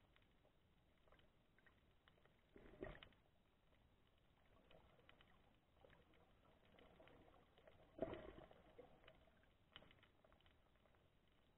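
Faint, muffled underwater sound as heard by a camera in its waterproof housing: a low hiss dotted with small clicks, and three short louder swishes of moving water, the loudest about eight seconds in.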